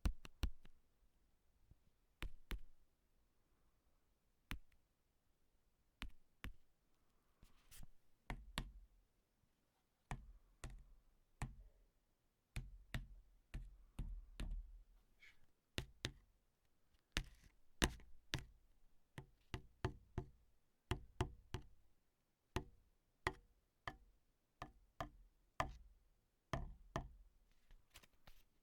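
A series of short, sharp taps at uneven intervals, a second or two apart at first and then quicker, several a second, some with a dull low thud beneath them.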